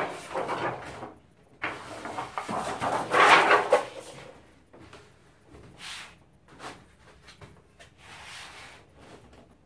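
A 55-inch LED TV's plastic cabinet being handled and turned over on a bench, scraping and knocking. The loudest scrape comes about three seconds in, followed by lighter clicks and taps.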